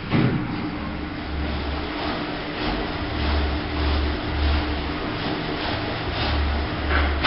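SYSPAL Hygicontrol walk-through boot washer running, its rotating brushes scrubbing the soles and sides of a pair of wellington boots over a steady motor hum. It starts with a clunk just after the beginning, and the hum stops near the end.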